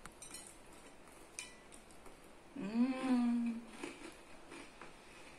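A woman's closed-mouth "mmm" of enjoyment while eating: one hummed tone that rises and then holds for about a second, some two and a half seconds in. Faint soft chewing clicks come before and after it.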